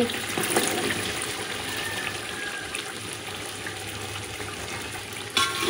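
Boiled chickpeas tipped from a steel dish into a pot of simmering potato curry: a brief slide and splash in the first second, then a steady bubbling hiss of the liquid that slowly fades. A sudden louder sound comes near the end.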